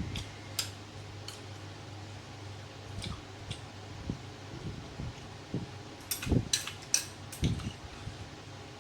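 Tableware clicking and clinking at a meal, in scattered short knocks with a busier cluster about six to seven and a half seconds in, over a steady low hum.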